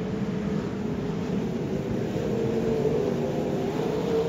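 Several sprint cars' V8 engines running on track together, a loud, steady drone whose pitch wavers a little as the cars circulate.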